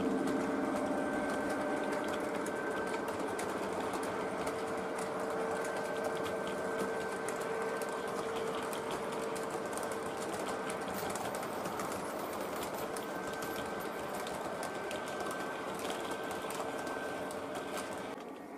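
O gauge three-rail model train running along the track: a steady electric motor whine with rapid fine clicking of wheels on the rails, dropping away near the end.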